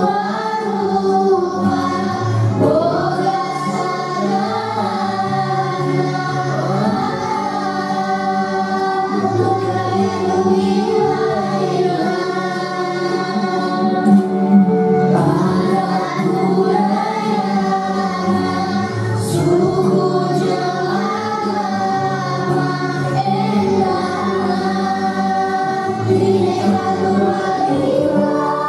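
Children singing together with instrumental music accompaniment, a steady song with held bass notes beneath the voices.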